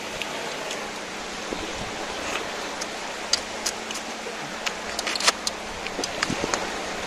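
Close-up eating sounds of grilled tuna being eaten by hand: scattered small wet smacks and sucking clicks as the meat is sucked off the fish, more of them in the second half. Under them runs a steady hiss.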